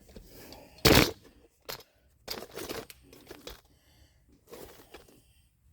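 Work sounds from remounting a truck wheel: scattered knocks, scrapes and rattles, with one loud sharp knock about a second in.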